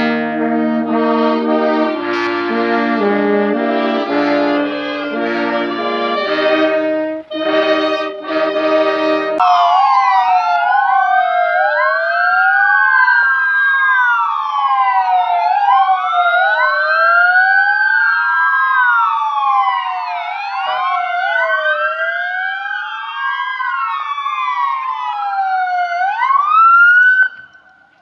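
A brass band with trumpets and clarinet plays slow held chords. About nine seconds in the music cuts off and many ambulance sirens wail together, each rising and falling out of step with the others, until near the end.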